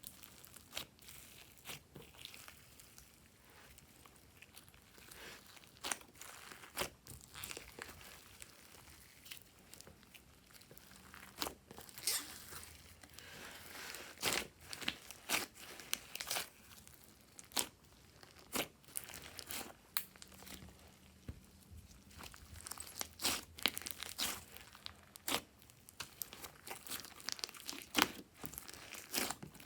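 Glossy slime being squished, stretched and folded by hand, with irregular sticky clicks and crackles throughout. They come thickest around the middle and again in the later part.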